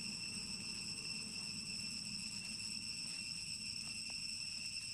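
Insects droning steadily at one high pitch, unbroken, over a faint low background rumble.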